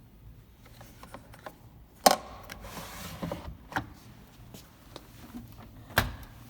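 Handling noises: a sharp knock about two seconds in, followed by a second or so of scraping or rustling and a few light clicks, then a second sharp knock near the end.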